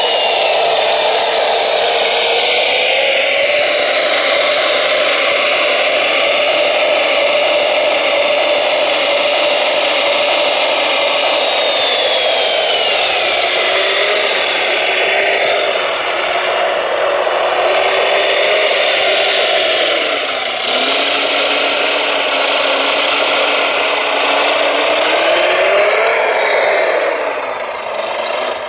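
Radio-controlled model construction machines running: electric motors and gearboxes whining and rattling, the pitch gliding up and down as the throttle changes.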